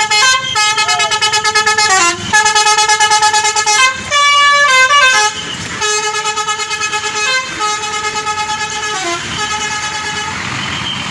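Tour bus 'basuri' musical horn playing a melody: loud held notes, each pulsing rapidly, stepping to a new pitch every second or two, with a quick run of higher notes about four seconds in. The tune gives way to a noisy hiss near the end.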